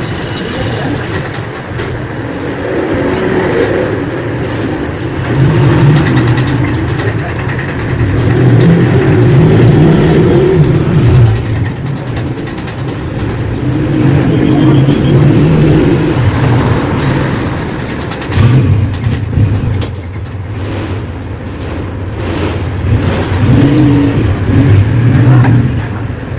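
Motorcycle engine running, its sound rising and falling every few seconds as it is revved.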